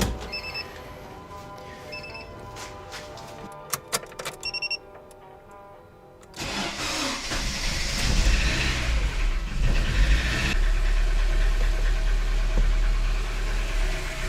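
Lada Granta's engine being cranked and catching about six seconds in, then running steadily. Before it there are a few short beeps and a cluster of clicks, under background music.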